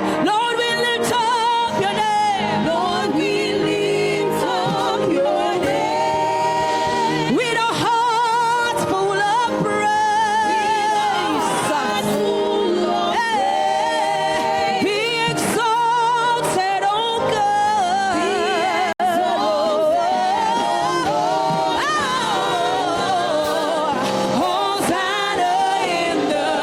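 Gospel worship singing with musical accompaniment; a voice holds melody lines with vibrato over steady backing notes.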